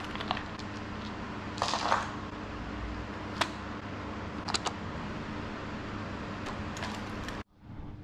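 Handling a small cardboard box of exercise dice and its instruction card: a short paper rustle about two seconds in and a few sharp clicks and taps, over a steady background hum. The sound drops off suddenly near the end.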